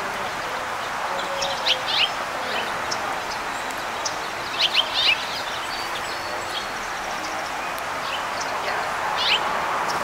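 Small songbirds chirping in short, quick clusters, about three times, with the loudest a little under halfway through, over a steady background hiss.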